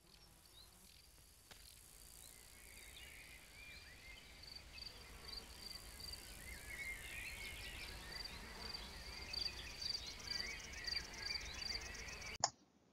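Faint nature ambience of crickets chirping in a high, evenly repeated pulse, mixed with other short chirping calls. It fades in over several seconds and cuts off abruptly just before the end.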